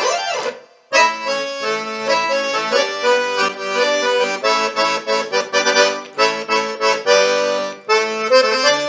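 Accordion playing a melody over chords, with a short break just before a second in before the playing carries on.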